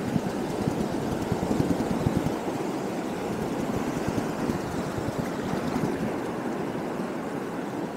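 Wind buffeting the microphone in an uneven, fluttering rumble, over the wash of a choppy sea.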